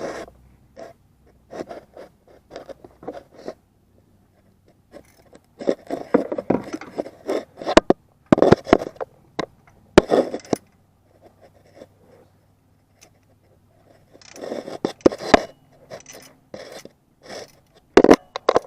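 Hands working with tools and metal parts: irregular clicks, knocks and short scraping, loudest in two busy stretches with quieter gaps between.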